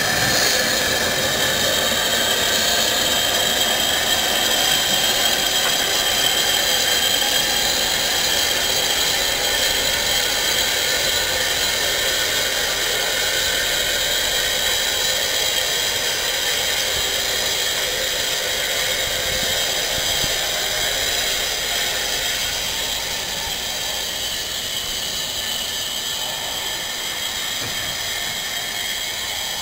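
Steam hissing steadily from a standing steam locomotive, a high-pitched rush of escaping steam with a faint whistling tone in it, easing off somewhat over the last few seconds.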